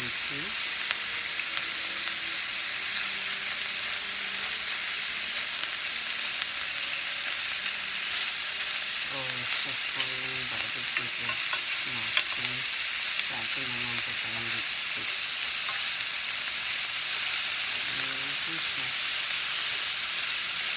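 Bite-size pieces of rib eye sizzling steadily in a hot frying pan, with scattered clicks and scrapes of a metal fork turning the meat against the pan.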